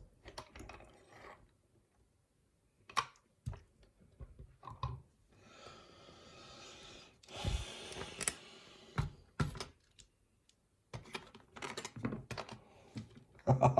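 Scattered small metallic clicks and taps from a picked challenge lock and lock picks being handled, with a soft rustle in the middle and a quick run of clicks near the end.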